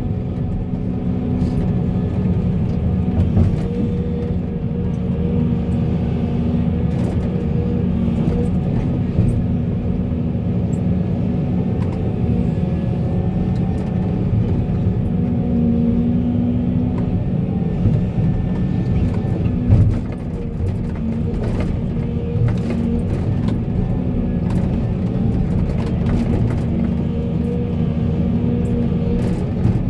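Heavy diesel engine of an excavator running steadily, with scattered knocks and clatters and a louder clunk about twenty seconds in.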